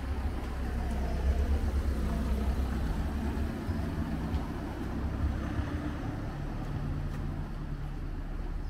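Motor vehicle engine running close by, a steady low rumble, loudest about a second or two in.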